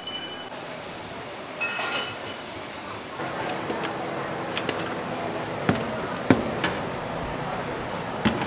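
A short chime jingle ends at the start. It is followed by kitchen sounds: stainless-steel bowls and utensils clink and knock a few times over a steady hum.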